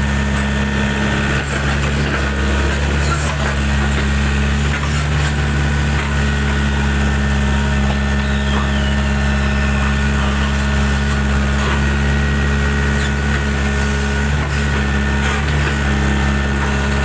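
Engine running steadily at an even, unchanging speed, a constant low hum with no revving.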